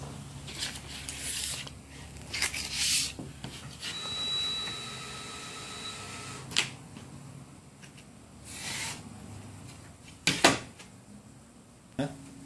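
Handling noises: a few brief swishes and sharp clicks or knocks, the loudest a double knock about ten seconds in, with a faint high tone for a couple of seconds near the middle.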